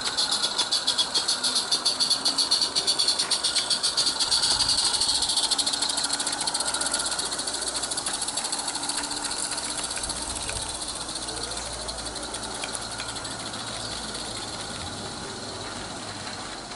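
Roundhouse live steam garden-railway locomotive running past, its exhaust chuffing quickly and evenly over a steam hiss. The chuffs fade away after about six seconds as it draws off, leaving a softer steady hiss.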